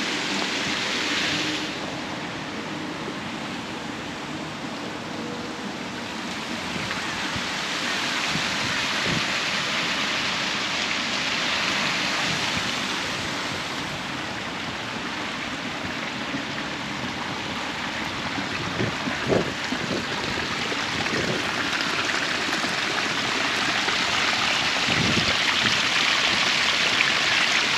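Steady rushing of water at a river waterfall, swelling and easing in loudness and strongest near the end, with a few faint knocks about two-thirds of the way through.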